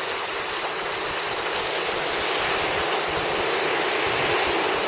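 Heavy rain pouring down, a steady hiss of the downpour splashing into puddles on waterlogged ground.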